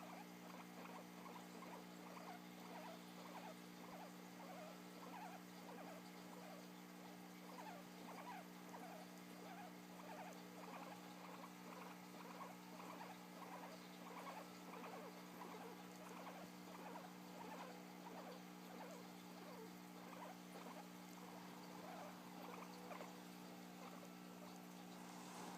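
Guinea pig making faint, quick little sounds, several a second, over a steady low hum.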